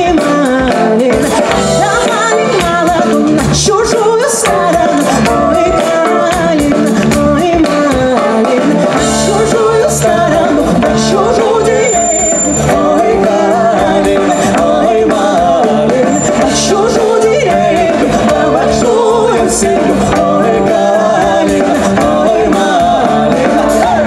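Live folk-fusion band playing a song with a singer, over a steady beat.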